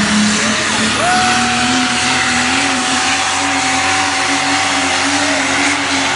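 Super stock diesel pickup engine running flat out under load while pulling a sled, a loud steady drone whose pitch creeps slightly upward. A thin, steady whistle rides on top of it from about a second in until about five seconds.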